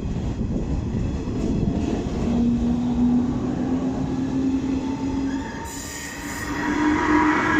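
Electric commuter train running at low speed with a steady whine that rises slowly in pitch over the last few seconds, as it gathers speed, over wheel and track rumble.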